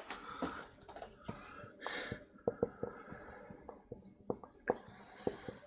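Dry-erase marker writing on a whiteboard: a quick, irregular run of short strokes and taps of the marker tip as words are written.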